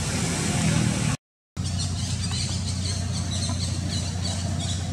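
Outdoor background with a steady low hum. It drops to silence for a moment just over a second in, then comes back with faint, high, repeated chirping.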